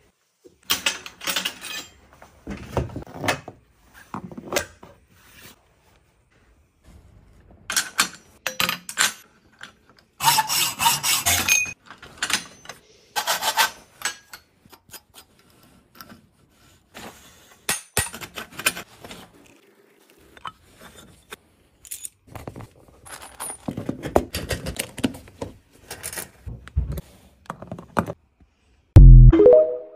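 Scattered scrapes, rubs, clicks and knocks of steel conduit and its fittings being worked by hand in a pipe bender and screwed into a metal box, in irregular bursts with short pauses. Near the end a loud, short sound steps up in pitch.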